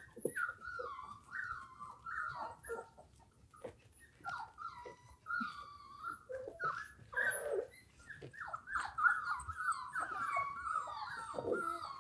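Five-week-old German Shorthaired Pointer puppy whimpering: a steady run of short, high whines, many of them falling in pitch.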